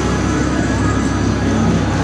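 Steady low rumble of performance car engines idling and creeping forward at a drag strip start line, with music from loudspeakers behind it.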